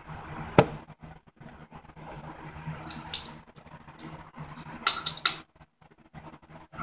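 Scattered metal clinks and knocks of hand tools and parts at a pit bike's rear axle, with one sharp knock about half a second in and a cluster of clicks around five seconds, over a faint steady low hum.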